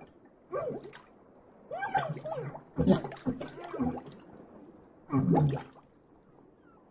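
Drowning sound effect: a person's choked, gurgling cries mixed with water sounds, coming in four bursts with short gaps between them.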